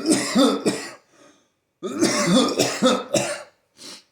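A man in a coughing fit: a burst of coughs, a pause of about a second, then a longer run of coughs and one last short cough near the end.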